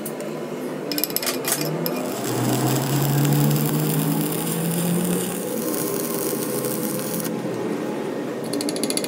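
Stick (arc) welding on a steel truck trunnion shaft: the electrode's arc crackling and sizzling steadily, with sharper crackles about a second in and again near the end. A low steady hum runs for a few seconds in the middle.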